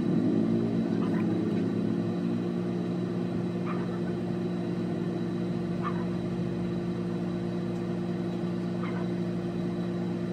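Steady electric hum from a motor or appliance, with a few faint short high chirps every two to three seconds.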